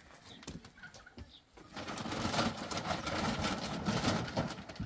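A large woven plastic sack rustling and crinkling loudly as it is picked up and handled, starting about a second and a half in.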